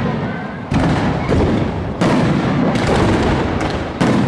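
Fireworks display: aerial shells bursting in quick succession, with three loud bangs (under a second in, at about two seconds, and near the end) over a continuous crackle of smaller reports.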